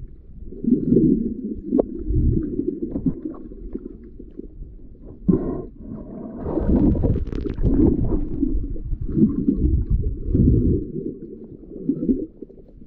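Muffled underwater rumble and sloshing of water around a camera held underwater while snorkeling, swelling in irregular surges every second or two, with a few faint clicks.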